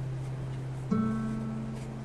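Live concert music heard from the audience: a plucked string instrument lets a low note ring and fade, then sounds a new, higher note about a second in that also rings and fades.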